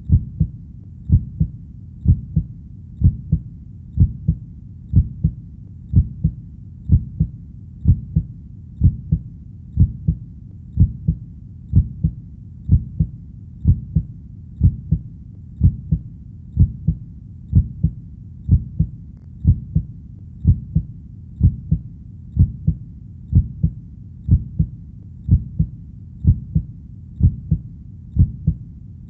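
Heartbeat, a steady low double thump (lub-dub) repeating about once a second.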